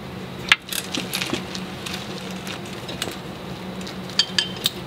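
A few small metallic clicks and clinks from nuts and tools being handled while nuts are threaded on by hand: a sharp one about half a second in and a short cluster near the end, over a steady low hum.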